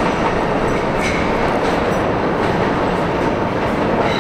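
R68 subway train running away down the tunnel: a loud, steady noise of wheels on rail, with a few clicks from the wheels and a brief faint squeal about a second in.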